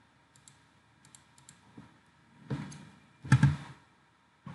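Computer mouse clicking, several light clicks in quick succession, followed by two louder, longer noises about two and a half and three and a half seconds in.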